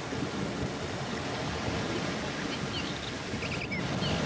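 Steady hiss of a VHS security camera's microphone and tape noise, with a few faint short chirps about three and a half seconds in.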